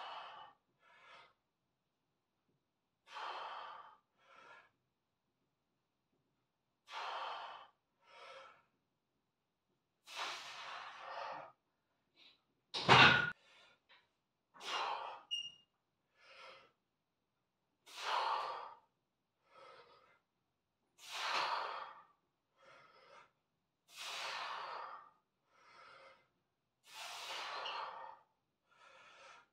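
A lifter's heavy breathing through a set of 100 kg barbell bench press reps: a forceful exhale or puff every one to three seconds, coming closer together later in the set. About 13 seconds in there is one sharp, loud knock, the loudest sound.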